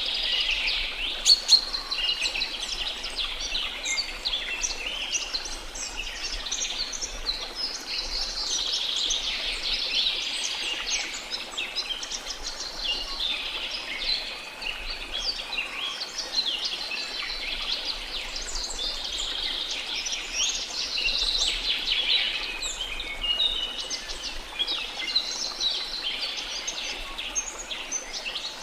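Dense chorus of many tropical forest birds chirping, whistling and calling over one another without pause, with two sharp loud notes about a second in. A faint steady rush of falling water sits beneath.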